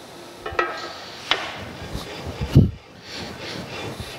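Cast-iron camelback straightedge rubbed back and forth over the blued ways of a metal planer's cast-iron cross head to spot the high points for scraping. Metal slides on metal, with a clunk at about four strokes; the loudest comes about two and a half seconds in.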